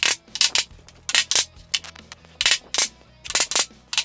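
Rubber mallet knocking a glued birch plywood panel down into its dados on a subwoofer cabinet: sharp knocks in quick pairs, about four pairs roughly a second apart.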